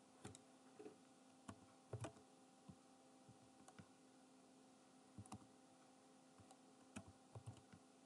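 Faint, irregular clicks of a computer keyboard and mouse, a dozen or so spread through, over a low steady hum.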